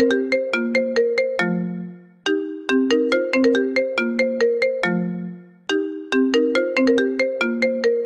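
A short ringtone-style jingle of quick plucked, marimba-like notes that ends on a low held note, looping about every three and a half seconds.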